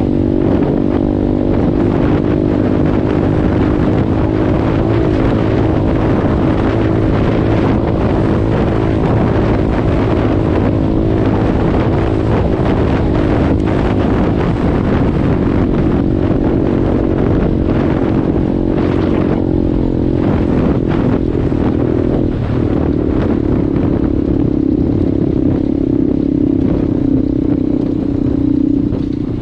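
KXD 612 Pro pit bike's single-cylinder four-stroke engine running at steady throttle while riding off-road, with wind rushing over the microphone. The engine note drops a little and steadies about three quarters of the way through.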